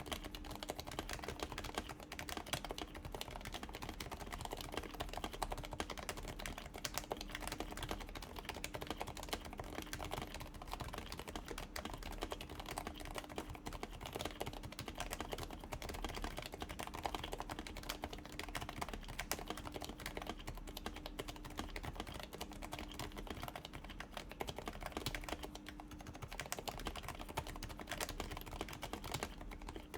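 Continuous typing on a Happy Hacking Keyboard Professional with aged, lubed and silenced 45 g Topre switches under PBT doubleshot keycaps. It is a dense, steady stream of keystrokes with no pauses.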